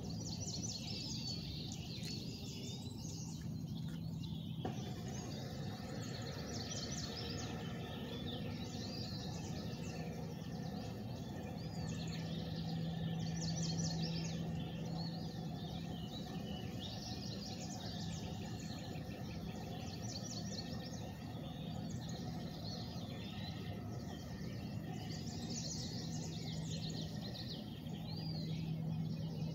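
Songbirds chirping and calling over and over, many short high calls overlapping, over a steady low outdoor hum.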